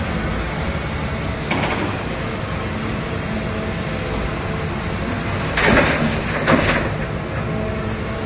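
Wheeled excavator's diesel engine running under load with its hydraulics working as it swings a full bucket. Two short, loud rushes of noise come about a second apart, two-thirds of the way through.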